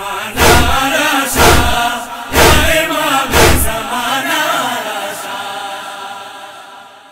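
Voices chanting a Pashto noha lament, kept in time by heavy chest-beating (matam) thumps about once a second. The thumps stop after about four seconds and the chanting fades out.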